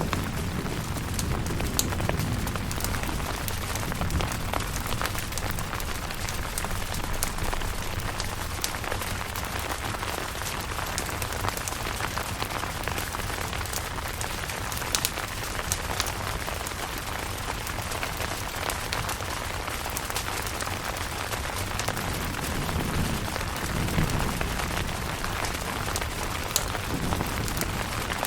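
Steady rain falling on a camping tent, with many sharp individual drop hits over an even hiss. A low rumble swells briefly about three-quarters of the way through.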